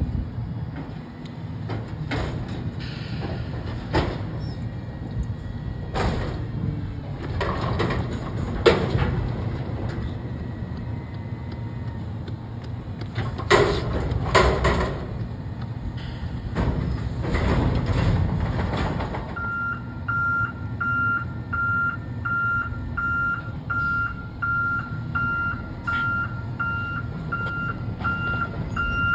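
Natural-gas engine of an Autocar ACX front-loader garbage truck running, with several short knocks and hisses. About two-thirds of the way in the truck's reverse alarm starts, beeping steadily a little faster than once a second.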